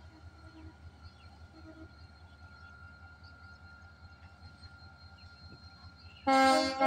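Korean-built NLC diesel locomotive running with a low, steady pulsing engine hum. Near the end its horn sounds loudly, a chord of several tones, breaking off for a moment and then sounding on.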